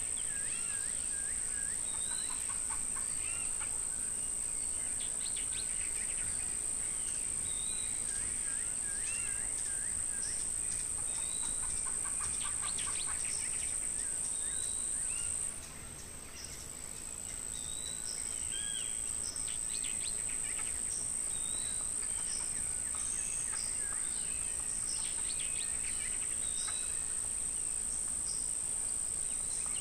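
Insects keep up a steady, high-pitched buzz that stops briefly about halfway through and then starts again. Birds call and chirp throughout, with repeated short notes and a few trills.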